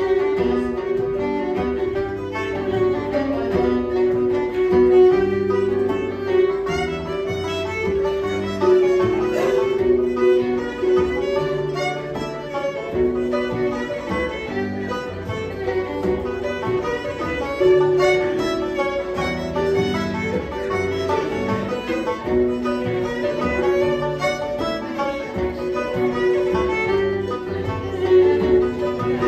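Irish traditional band playing a tune live on fiddle, tenor banjo, harp, piano accordion and bodhrán.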